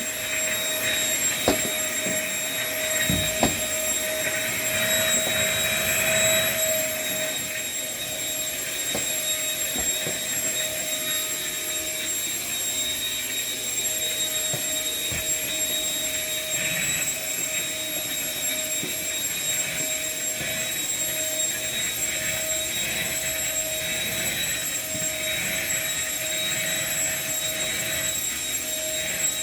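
Vacuum cleaner running steadily, a constant whine over rushing air, sucking up scraps of paper from the floor. A few knocks come in the first few seconds.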